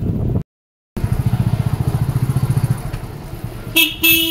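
Motorcycle engine running with a fast, even pulse, easing down. Near the end a horn sounds twice: a short blip, then a longer honk.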